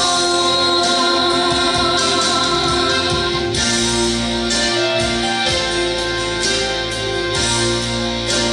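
A woman singing a Christian worship song to an instrumental backing track; her voice drops out within the first few seconds and the accompaniment plays on alone with held notes.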